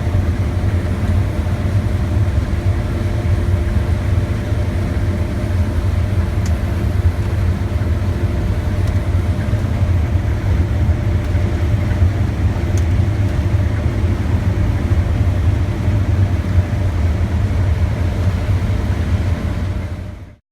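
Case 8230 combine running steadily while harvesting corn: a loud, even, low drone with a steady hum. It fades out quickly near the end.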